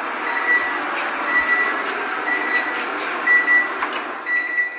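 Electronic beeping: a short, high-pitched beep repeating steadily about once a second, over a steady background noise.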